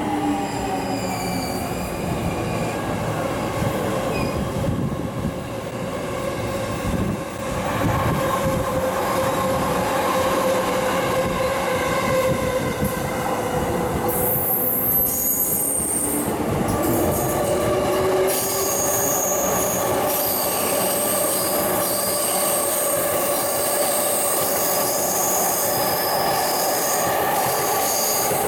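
Yellow-striped Chuo-Sobu local electric commuter train running on its inverter-driven motors, with gliding electric motor tones and wheels running on the rails. From about halfway in, high-pitched wheel squeal joins as a train runs through the curve.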